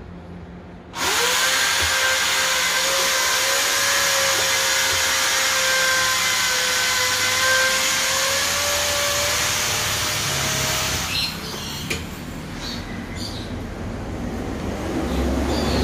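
Tyre-changing machine working a scooter wheel: a loud steady hiss with a whine in it, starting about a second in. It cuts off at about eleven seconds, followed by a few clicks and knocks.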